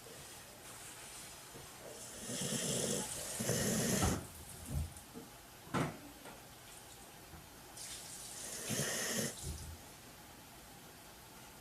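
Snoring: two long, raspy snores about six seconds apart, with a short sharp sound between them.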